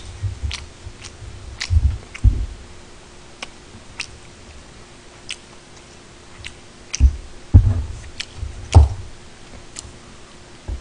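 Close-miked chewing of food, with scattered sharp mouth clicks and two short clusters of low thuds.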